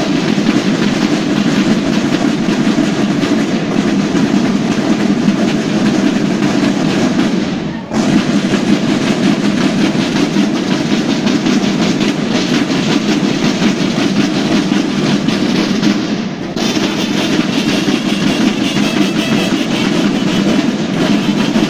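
Massed snare drums of a school banda de guerra playing a fast, dense cadence in unison, with two brief breaks, about eight seconds in and again around sixteen seconds.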